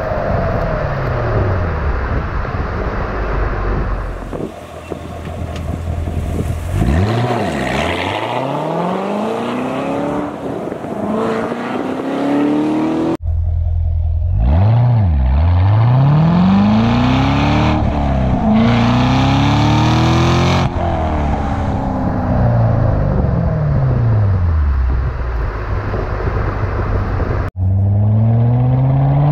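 Chevrolet C7 Corvette Grand Sport's 6.2-litre LT1 V8 heard at the tailpipes through its stock NPP dual-mode exhaust while driving, in several short spliced runs. The engine pitch rises as the car accelerates and falls as it lets off. The valves are closed at first; after a cut near the middle they are open, and the exhaust is louder.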